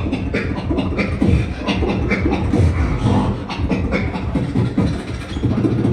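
Human beatboxing: kick, snare and bass sounds made with the mouth in a fast, dense rhythm, with deep bass tones under sharp hits.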